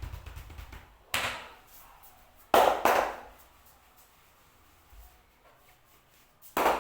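Three loud, sudden hand strikes in a head and shoulder massage: one about a second in, a quick double strike around two and a half seconds in, and one near the end.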